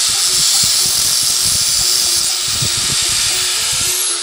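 Handheld angle grinder running, its disc grinding the burnt, uneven tip of a used arc-welding rod square, with a steady, loud hiss; its pitch starts to fall near the end. Squaring the tip this way makes a used rod easier to strike an arc with.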